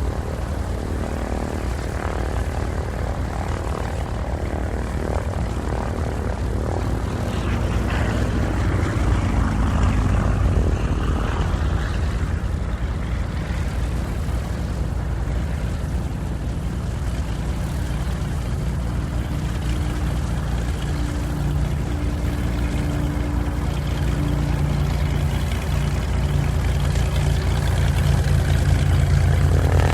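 Airplane engine running with a steady, loud drone that swells a little about a third of the way in and again near the end.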